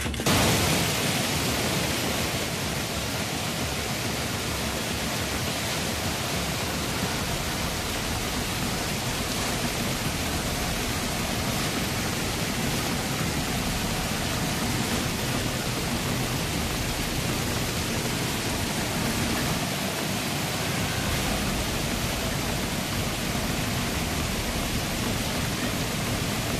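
Muddy floodwater rushing down a flooded street, a steady, even rush of water.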